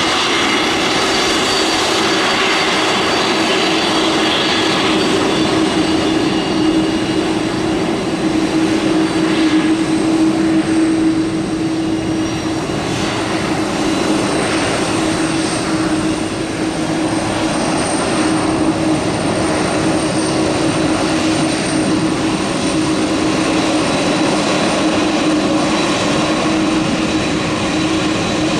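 Boeing 747-400 freighter's four jet engines running, a loud continuous rush of engine noise with a steady hum and a high whine; the whine's pitch shifts upward partway through.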